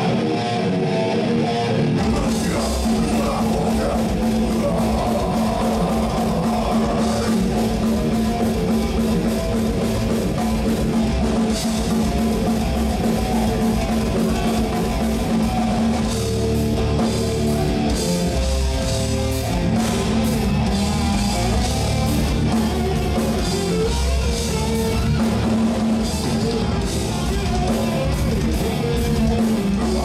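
Live rock band playing: electric guitars, bass and drum kit, with the bass and drums coming in about two seconds in.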